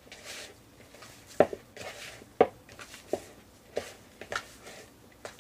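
Hand kneading a soft almond-flour and egg-white dough in a plastic mixing bowl: dull knocks, roughly one a second, as the dough is pressed against the bowl, with soft squishing and rubbing between them.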